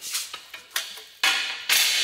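Metal blind-tower parts clanking together as they are handled and set down, about four sharp knocks, some leaving a short metallic ring.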